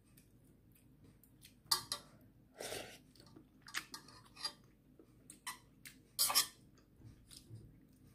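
Eating ramyeon from a stainless steel pot: scattered clicks of a metal spoon and chopsticks against the pot, with a few short louder eating noises as the noodles are taken into the mouth and chewed, the loudest about three seconds in and again near six seconds.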